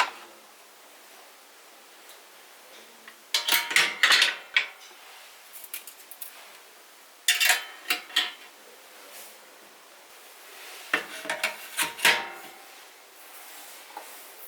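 Kitchen dishes and cutlery clinking and knocking together in three short bursts of clatter, spaced a few seconds apart.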